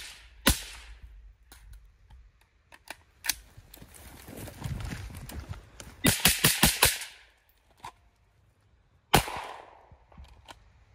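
Suppressed AR-style rifle firing: one shot just after the start and a fast string of about six shots about six seconds in. A single sharp shot follows about nine seconds in, with small clicks and rustling of movement between the shots.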